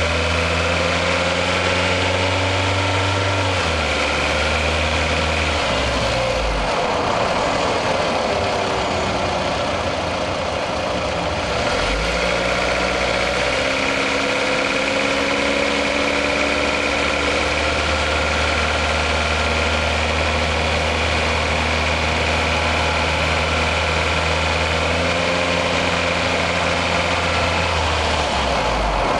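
Toyota RAV4's 1AZ-FE 2.0-litre four-cylinder engine running under load while driving, heard close up from inside the engine bay; its pitch holds steady and then shifts to new levels several times, easing off around ten seconds in and picking up again. This warm engine is the one with a knock under load that the owner is trying to record.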